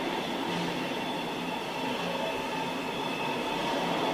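Freight train of container and tank wagons running past at speed, a steady rolling noise of wagon wheels on rail with a continuous high-pitched squeal over it.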